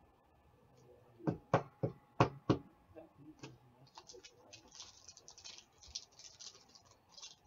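A hockey card being slid into a rigid plastic toploader, with five sharp plastic clicks and taps in quick succession. From about four seconds in comes the crinkling of a foil trading-card pack wrapper being handled and opened.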